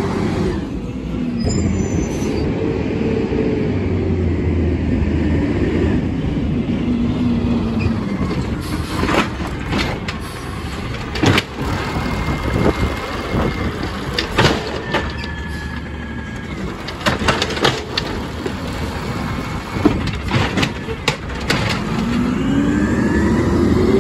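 2012 Peterbilt 320 natural-gas garbage truck with an Amrep automated side loader. The engine revs up and down to drive the hydraulic arm, the arm grips a cart, lifts and dumps it with a run of sharp clanks and bangs, then sets it down as the engine revs up again near the end.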